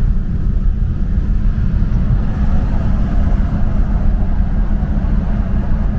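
Car driving: a loud, steady low rumble of road and engine noise with no clear rhythm or pitch changes.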